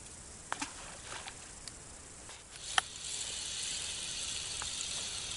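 Spinning reel on a feeder rod being wound in: a few faint clicks, then a steady high whirring hiss for about three seconds.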